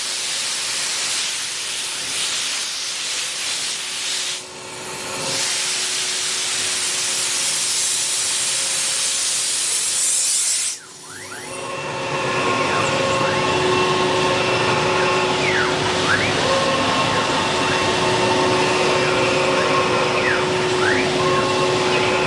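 A 1325 CNC wood router with a 4.5 kW spindle at work. For about half the time it is a loud, steady hiss. After a sudden break it becomes a steady machine whine with several fixed tones and a few brief dips in pitch.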